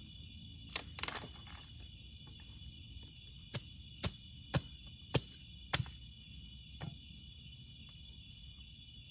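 Steady high drone of night insects such as crickets, over which come sharp wood cracks at a campfire: a couple near the start, then five about half a second apart in the middle, the last of these the loudest, and one more a second later.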